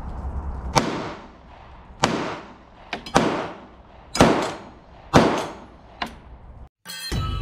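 A string of concealed-carry pistol shots, about a second apart, each sharp crack trailing off in a long echo.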